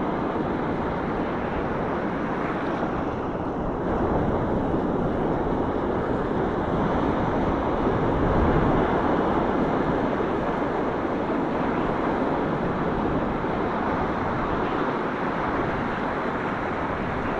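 Ocean surf washing in as a steady rush, swelling a little about four and eight seconds in, with wind on the microphone.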